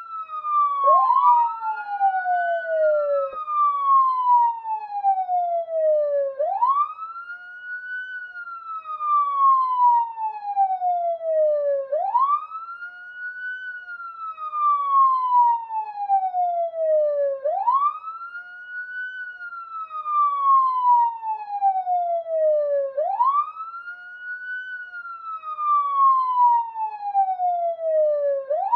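Police siren wailing in a repeating cycle: the pitch climbs quickly, then falls slowly back down, about every five and a half seconds. Near the start one cycle overlaps the next.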